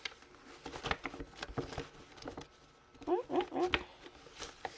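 Paper scraps rustling and clicking as they are handled and sorted through, with a quick run of short rising squeaky notes about three seconds in.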